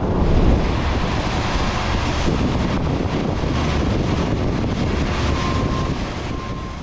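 Wind buffeting the microphone, a steady rumbling rush. Near the end a faint high steady tone sounds twice, briefly.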